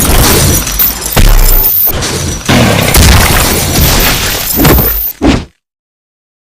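Loud battle sound effects, dense crashing and impact hits over music, that cut off abruptly to total silence about five and a half seconds in.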